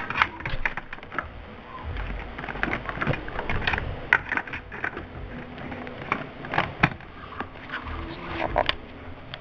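Small plastic toy crates being set by hand into an O scale model gondola car: an irregular scatter of light plastic clicks and knocks.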